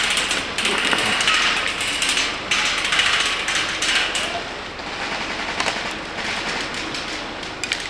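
Airsoft electric guns firing rapid full-auto bursts, dense over the first four seconds or so, then thinning to sparser shots.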